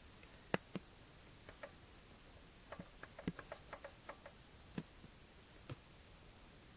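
Crankshaft pulley of a VAZ-2110 eight-valve engine giving short, sharp knocks at uneven spacing, most of them bunched in the middle.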